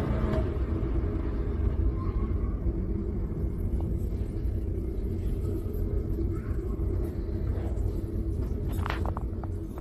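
Steady low rumble of road and engine noise from a vehicle driving on a highway, heard from inside the cab, with a few short clicks near the end.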